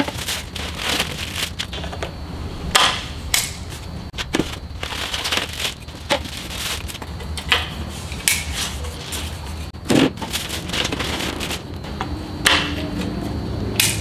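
Ceiling fan parts being handled and fitted together by hand: irregular clicks, knocks and crinkling, over a steady low hum.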